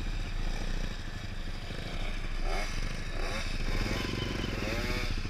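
Motorcycle engines running at low speed, among them a child's mini dirt bike, with fast steady firing pulses. From about halfway a repeated wavering, rising-and-falling engine tone joins in.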